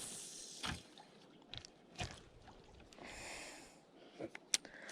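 Faint scattered clicks and small handling noises, such as fishing tackle being handled while a lure is changed, with a soft breathy rush about three seconds in.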